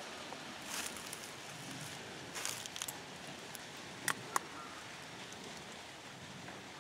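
Soft rustling in dry leaf litter in a few short bursts, then two sharp snaps or clicks close together about four seconds in, over a low steady hiss of quiet woodland.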